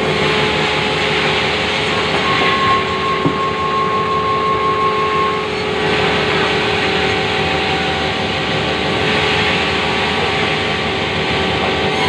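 Sawmill band saw running steadily while timber is fed through it, a constant machine noise. A thin whine rises above it from about two seconds in to about five and a half seconds.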